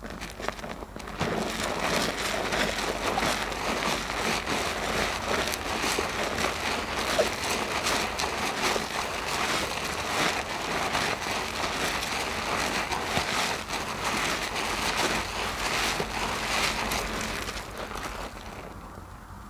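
A large soap-soaked loofah squeezed by hands in thick foam: a dense, wet crackling of popping suds that starts about a second in and fades near the end.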